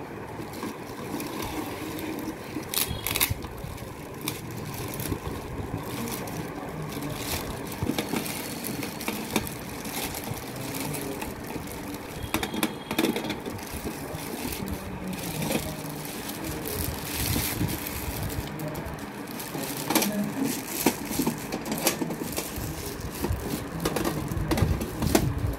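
Plastic film and bubble wrap rustling and crinkling as they are pulled off a box, with scattered sharp crackles.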